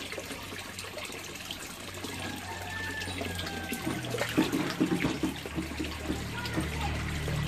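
Pond water splashing and sloshing as a crowd of koi thrash at the surface around a hand in the water, with small splashes that grow busier about halfway through.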